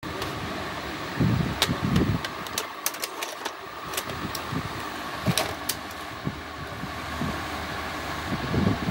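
VHS cassette being pushed into an opened Panasonic VCR, the cassette carriage drawing it in and lowering it onto the tape deck: a string of sharp plastic clicks and a few low clunks over a steady mechanical hum.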